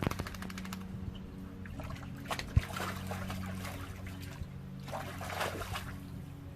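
Water splashing and trickling in a foldable PVC dog pool as a dog moves about in it, with a few sharper splashes over a steady low hum.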